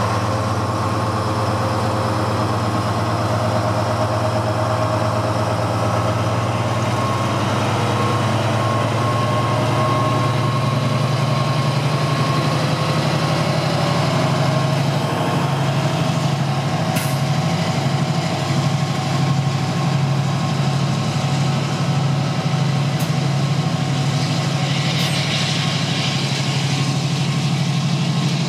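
Colas Rail Class 70 diesel locomotive engine running under load as it hauls a train of hopper wagons, a deep steady drone that rises a little in pitch partway through and then throbs evenly. A hiss comes in near the end.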